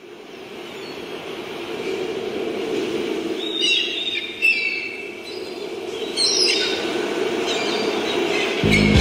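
Intro of a backing track: a steady rushing ambient noise fades in, with several short bird-like chirps and whistles gliding in pitch. Near the end the accompaniment music comes in with a bass line.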